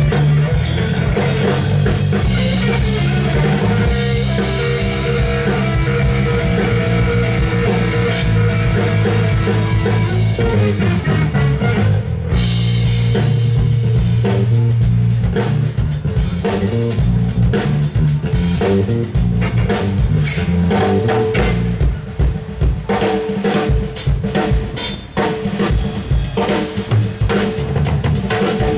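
Live instrumental rock from a trio of electric guitar, bass guitar and drum kit playing together. In the last third the playing thins out and the drum hits stand out more.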